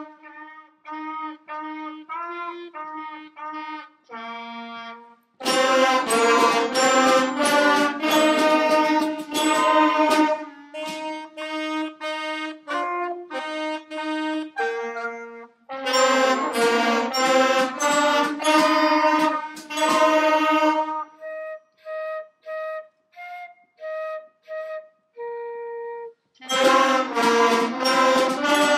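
A children's band of saxophones, flute and clarinet playing a tune together. Quieter phrases on a single instrument alternate with loud passages for the whole group, the group coming in about five seconds in, again at about sixteen seconds and near the end.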